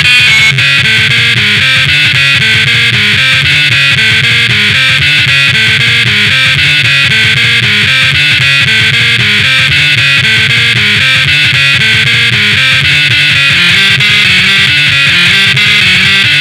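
Loud music with a repeating bass-note pattern that runs without a break.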